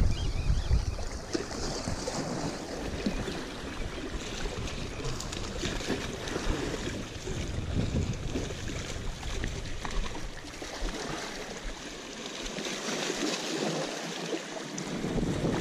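Waves washing against jetty rocks, with wind buffeting the microphone; the wind rumble is strongest in the first second and then eases.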